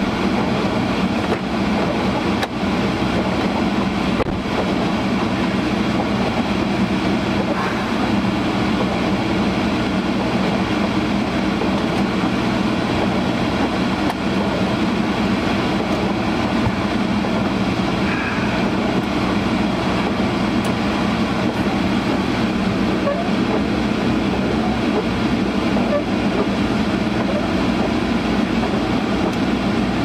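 Honda CR-V's defroster blower running at full blast, a loud, steady rush of air filling the cabin.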